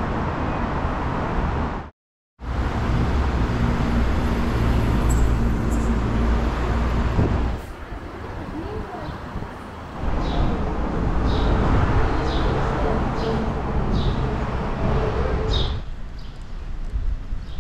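Outdoor ambience: a steady low rumble that drops out briefly near the start and turns quieter partway through. In the second half, a run of short high chirps comes about every half second.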